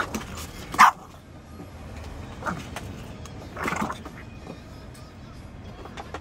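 French bulldog barking four times; the second bark, just under a second in, is the loudest, and the last, near the four-second mark, is a little drawn out.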